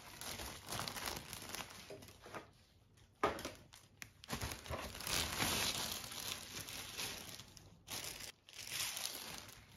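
Clear plastic packaging film crinkling and rustling as it is handled, in irregular bursts, with a sharp knock about three seconds in.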